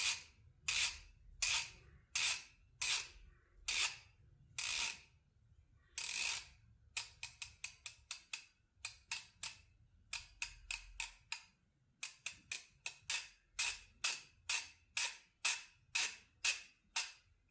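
Craftsman V-series 1/2-inch drive ratchet clicking as it is worked back and forth, its head freshly dabbed with oil to work into the pawl mechanism. Slow, separate strokes at first, then quicker runs of single clicks from about seven seconds in.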